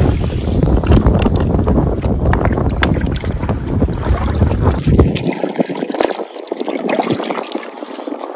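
Wind buffeting the microphone over surf on the shore, a loud low rumble that drops away abruptly about five seconds in, leaving fainter surf and scattered light clicks.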